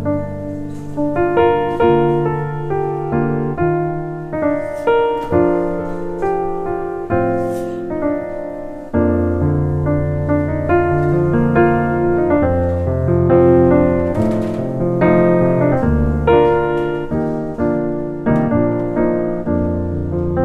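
Solo piano music: a slow tune of single notes and chords over held bass notes, each note left to ring and fade.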